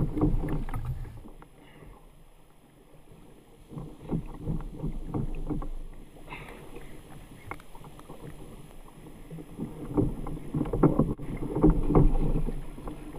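Water slapping and lapping against a kayak hull in a small chop, in short irregular splashes. It is quieter for a couple of seconds early on and grows louder and choppier in the last few seconds.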